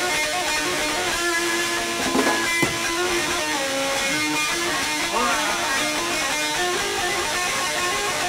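Live band music led by a loud, distorted electric bass playing a fast run of high, changing notes that sounds much like an electric guitar. A couple of sharp hits come a little after two seconds in.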